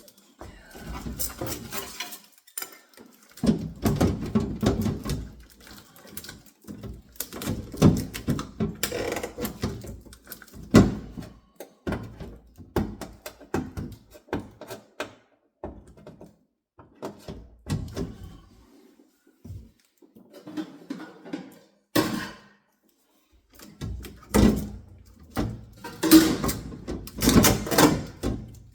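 Irregular thunks, knocks and rustling from handling a new refrigerator and its packaging, with a few sharper single knocks along the way.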